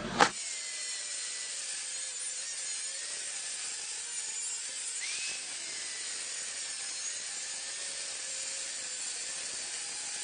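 A small power tool running steadily with a high-pitched, hissy whine, starting right after a sharp click.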